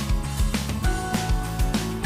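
Background music with a steady beat, about four beats a second, over sustained notes.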